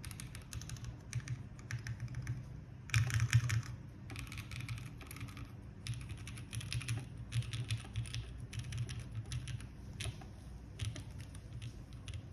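Continuous typing on a Kalam Dalco 959 Mini GT mechanical keyboard with lubed SP-Star Meteor White switches on an aluminum plate and GMK keycaps: a steady run of key clacks, with a fast, louder flurry of keystrokes about three seconds in.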